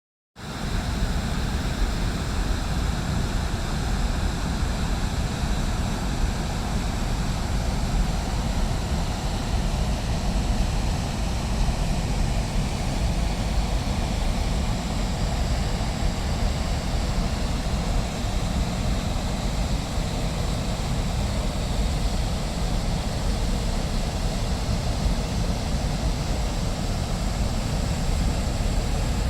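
Steady rush of a waterfall: continuous falling-water noise with a heavy low rumble, unchanging throughout.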